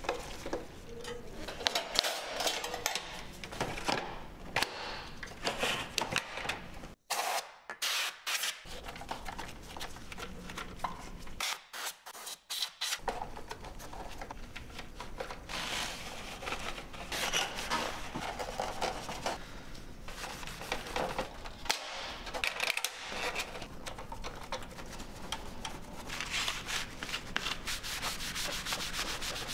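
Rubbing, scraping and handling noises from taking apart a Macintosh TV: a screwdriver and metal and plastic parts being worked by gloved hands, and near the end a hand wiping down the black plastic front bezel. The sound cuts out briefly twice in the first half.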